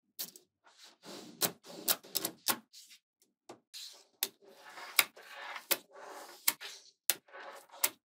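Small magnetic balls being handled: a dozen or so sharp clicks as balls snap together, with stretches of crackly rattling as rows of balls roll and shift against each other.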